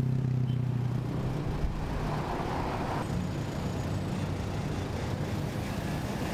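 Road traffic: a vehicle engine humming steadily for the first second or so, then the even noise of cars passing on the road.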